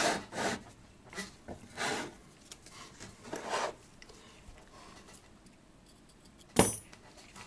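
Handling noise from a brass clock movement plate, its steel pillars still fitted, being lifted off a wooden block and turned in gloved hands: a few short rubs and scrapes, then one sharp knock near the end.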